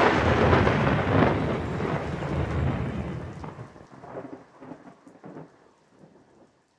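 Thunder rumbling over steady heavy rain, dying away over about six seconds into a few scattered crackles. This is a thunder-and-rain effect mixed in at the end of the song.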